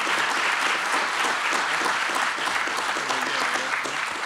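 A roomful of people applauding, steady and sustained.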